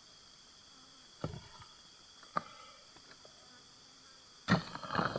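Steady high-pitched buzzing of insects. It is broken by a few short knocks about a second and two seconds in, and by a louder cluster of knocks near the end.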